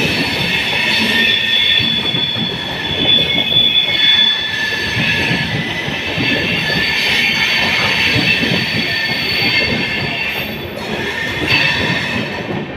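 Indian Railways passenger coaches rolling past close by, their wheels squealing in several steady high-pitched tones over the clatter and rumble of the bogies, as the train takes the curve into the station loop line.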